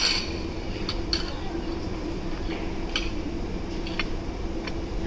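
Metal fork clinking and scraping on a ceramic plate: a handful of light, separate clinks spread through the seconds, over a steady low background hum.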